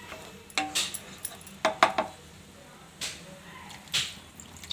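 Wooden spatula scraping and knocking against a nonstick kadai while stirring a thin masala gravy and scraping the stuck masala off the sides of the pan. A handful of short, sharp knocks and scrapes, the loudest pair just under two seconds in.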